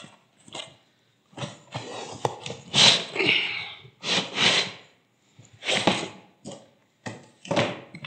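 Cardboard box scraping and rustling as a folding wooden laptop table is slid out of it, in a series of short scrapes.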